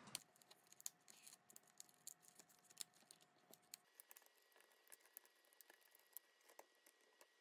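Faint, scattered small clicks and crackles of a laptop's plastic screen bezel as its clips and adhesive are worked loose by hand, with near silence between them.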